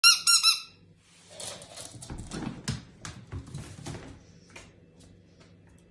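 A small dog squeezing a squeaky rubber toy ball, which gives three quick high squeaks at the start. Then come irregular clicks and knocks as the dog chews and works the ball.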